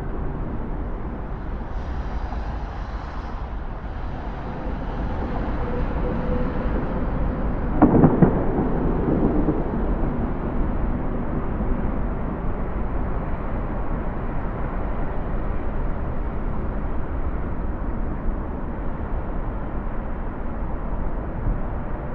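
Distant city ambience: a steady, diffuse rumble of traffic. About eight seconds in, a single loud low thump rings on and fades over a second or two.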